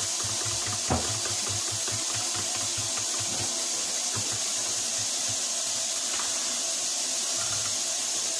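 Kitchen faucet running steadily into a sink, with light clicks of a utensil stirring batter in a plastic tray and one knock about a second in.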